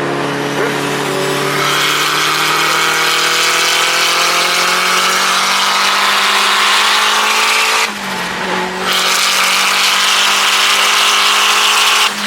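Turbocharged K24-swapped Honda S2000 engine under hard acceleration, its note climbing steadily with revs and a high turbo whine over it. About eight seconds in it breaks off briefly for a gear change, then pulls again.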